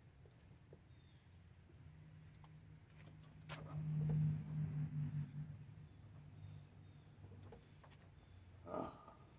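Faint steady high trill of insects. A low hum swells and fades through the middle, with a sharp click about three and a half seconds in.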